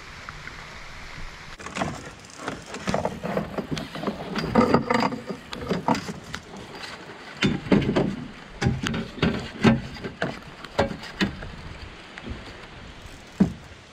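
River water rushing. From about a second and a half in, irregular knocks and clatter sound in a drift boat while a fish is fought on a spinning rod.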